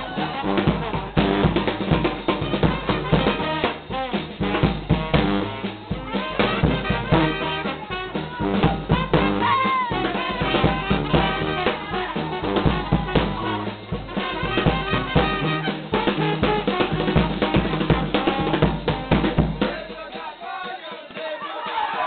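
New Orleans second-line brass band playing, with bass drum and snare driving a steady beat under the horns. Near the end the drums stop and crowd noise rises.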